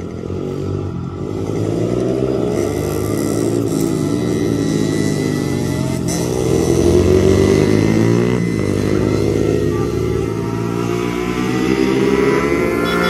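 Several mini-moto race bikes revving hard as a pack passes, their engine notes rising and falling over one another as they shift and corner. They get louder about two seconds in and are loudest midway.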